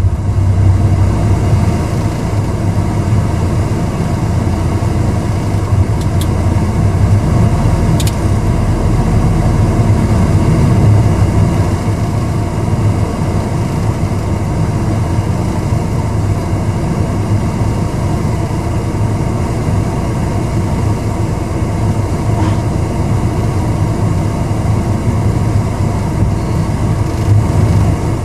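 Manitou telehandler engine running steadily, with a few faint clicks about six and eight seconds in.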